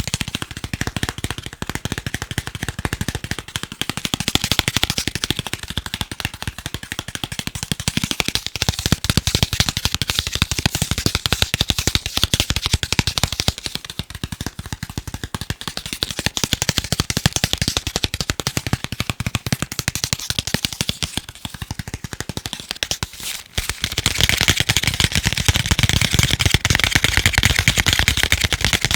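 Fast, continuous tapping on chocolate, a dense run of sharp little clicks. There is a brief break about 23 seconds in, and the tapping is louder after it.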